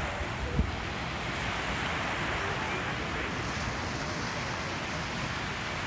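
Surf washing steadily onto a sandy beach, with wind on the microphone and one short low buffet about half a second in.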